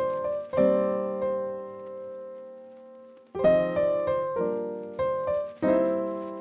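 Background music: keyboard chords struck and left to ring, one held and fading for a couple of seconds before the chords pick up again.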